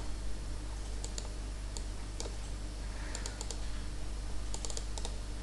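Light keystrokes on a computer keyboard, scattered clicks and short runs of clicks, over a steady low electrical hum.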